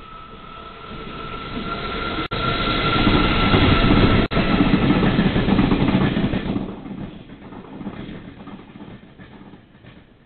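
Taiwan Railways locomotive-hauled tourist train passing through a station without stopping. Its rumble and wheel noise swell to loudest a few seconds in, then fade as it goes by, with wheel clicks at the rail joints on the way out. The sound cuts out briefly twice at the peak.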